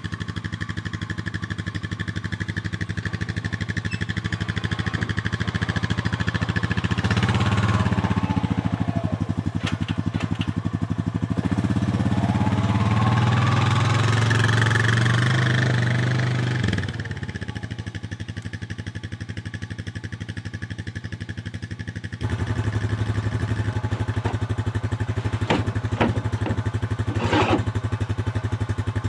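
ATV engine running, louder and rising while it is ridden off the trailer, then dropping back to a steady idle. Near the end a few sharp clanks sound over the idle.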